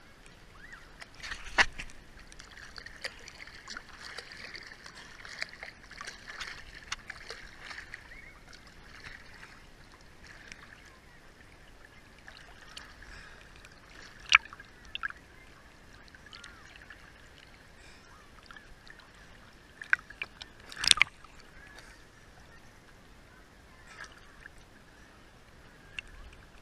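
Seawater sloshing and lapping, broken by a few sharp splashes; the loudest comes about 21 seconds in.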